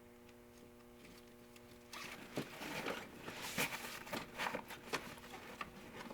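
Webbing straps and a kayak seat being handled: irregular rustling, scraping and clicking begins about two seconds in, as the seat is strapped down to the keel. A faint steady hum sits underneath.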